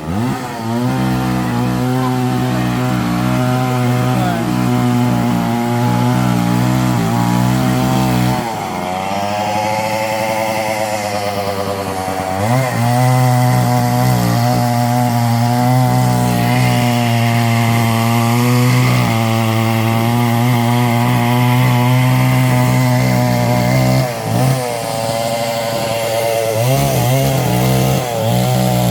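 Chainsaw running at high revs, easing to a lower, unsteady idle about eight seconds in and revving up again about four seconds later. It eases off briefly twice near the end, the pattern of cutting through a fallen tree.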